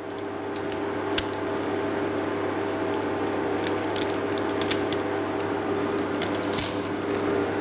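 Paper crinkling softly as it is peeled off a tart, with two sharper ticks, about a second in and near the end, over a steady hum.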